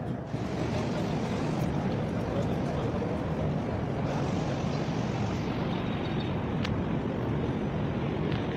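Steady outdoor background noise, strongest in the low range, with a faint sharp click about two-thirds of the way through.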